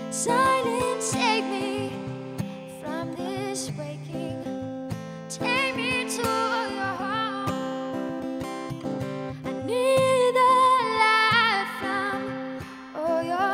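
A woman singing a slow song and accompanying herself on an acoustic guitar. She holds long, wavering notes over sustained guitar chords.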